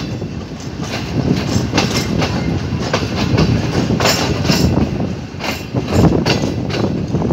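Pakistan Railways Tezgam Express passenger coach wheels running over the track, heard from aboard the moving coach: a steady rumble with uneven clickety-clack strikes over the rail joints, closest together in the second half.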